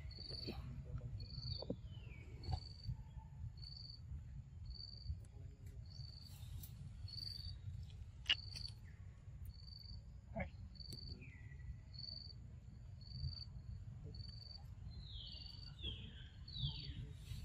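An insect chirping in the background: short high chirps repeating evenly, a little under two a second. A few short downward-sliding calls come in now and then, with a low rumble underneath.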